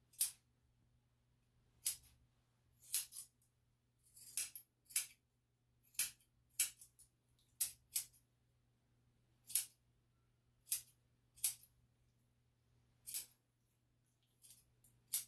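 Dog nail clippers cutting a small dog's toenails, one toenail per sharp click, about a second apart.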